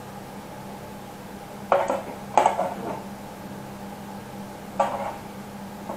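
Metal kitchen tongs clinking and scraping against a metal roasting pan while serving roast vegetables: three short clatters, about two seconds in, half a second later, and again near five seconds.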